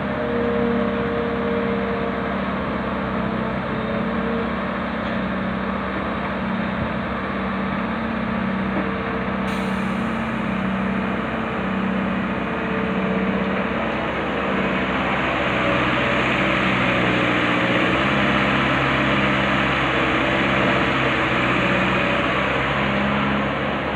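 Wheeled excavator's diesel engine running under load as it digs and swings, its note wavering up and down with the hydraulic work and growing a little louder in the second half.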